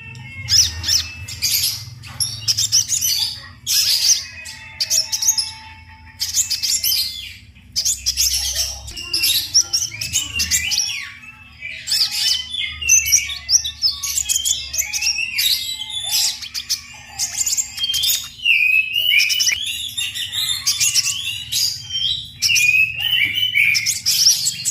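Kolibri ninja sunbird singing in trotol style: a rapid, continuous run of high chirps and trills with only brief pauses, over a steady low hum.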